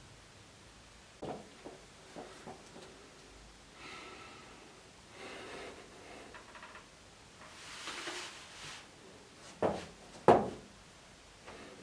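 A person breathing and moving on their body during a self back-cracking routine, with a few faint clicks early on. Near the end come two sharp pops or knocks, a little over half a second apart, the second the louder.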